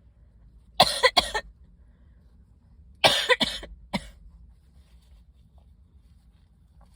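A woman coughing in short fits, set off by dust from old books: three quick coughs about a second in, two more around three seconds, and a last one about a second later.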